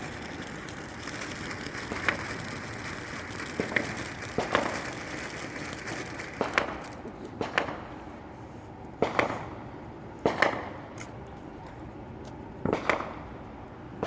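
Consumer fireworks going off: a string of about eight sharp pops and bangs at irregular intervals of one to two seconds. For the first six seconds or so they sit over a steady hiss.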